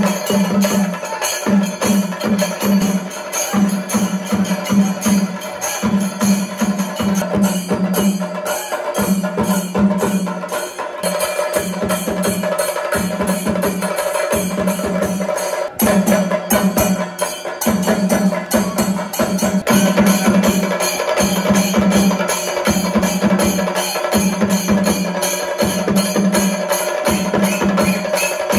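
Chenda melam: an ensemble of Kerala chenda drums beaten rapidly with sticks, with ilathalam hand cymbals clashing, in dense fast strokes over a lower beat that comes about once a second.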